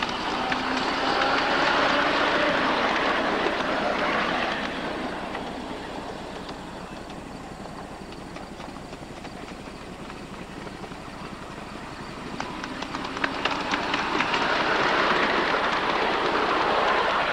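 Ride-on miniature railway trains rolling past on the track: one passes close in the first few seconds, it goes quieter, then another comes up and passes near the end, its wheels clicking over the rail joints as it approaches.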